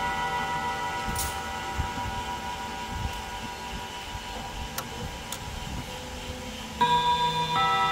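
Junghans mantel clock's five nickel-silver chime rods ringing on after a chime and slowly fading. Near the end the hammers strike the rods again and start a new run of notes, warm and long-ringing.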